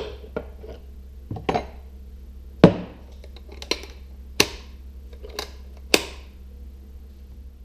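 Metal spray gun set down in a wooden carrying case, the lid shut with a knock about two and a half seconds in, then the case's metal latches snapping closed in a few sharp clicks about a second apart, over a steady low hum.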